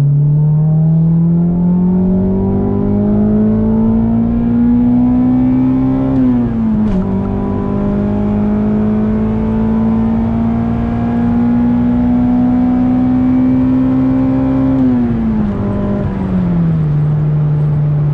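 1997 Acura Integra GS-R's 1.8-litre DOHC VTEC four-cylinder engine, fitted with an aftermarket Yonaka exhaust, heard from inside the cabin while driving. The revs climb for about six seconds, dip quickly as with an upshift, climb again more slowly, then fall away near the end and settle to a steady note.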